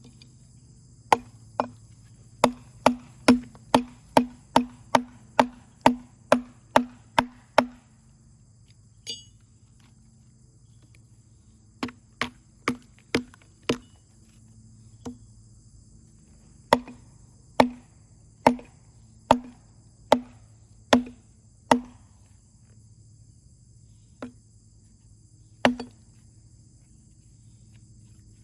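Runs of sharp knocks or strikes, about two or three a second, with pauses between the runs.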